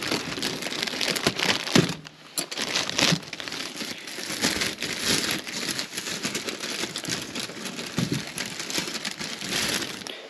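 Plastic bags crinkling and rustling as hands rummage through a bag of sweet potatoes, with a short lull about two seconds in.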